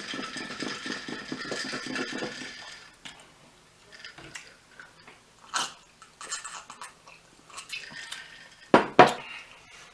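Food containers and utensils being handled: a dense rustling clatter for the first few seconds, scattered light clicks, then two sharp knocks near the end.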